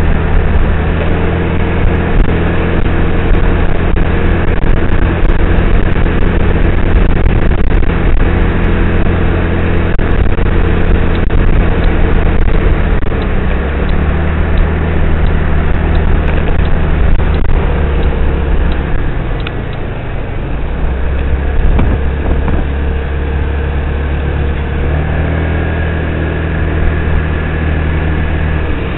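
Yamaha Zuma 125 scooter's single-cylinder four-stroke engine running under way, with steady wind and road noise. The engine note shifts a few times, and the sound gets a little quieter about twenty seconds in.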